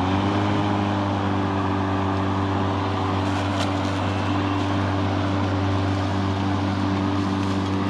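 Stiga Twinclip 950e V 48-volt battery lawnmower's electric blade motor spinning up to speed at the start, then running at a steady whine over a low hum and a rushing noise from the spinning blades.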